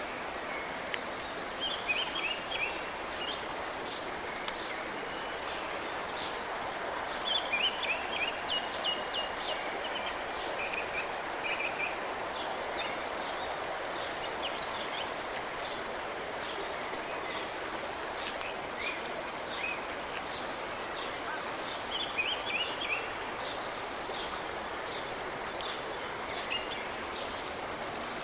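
Small songbirds chirping and trilling in short bouts in the woods, over a steady rushing background noise.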